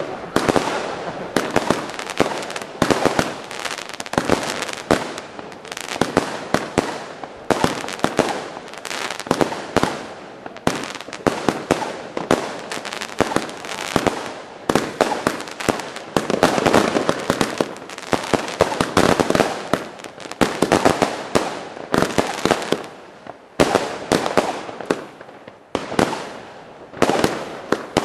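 Consumer firework cakes firing in a long, rapid chain of launch thumps and aerial bursts, several a second, with crackling stars between the bangs.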